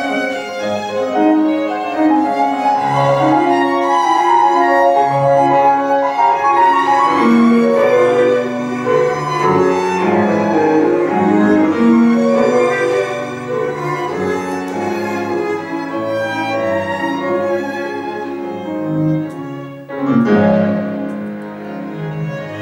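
Live chamber music for violins, cello and grand piano, the strings playing bowed lines over the piano. The sound thins briefly about twenty seconds in, then the ensemble comes back in strongly.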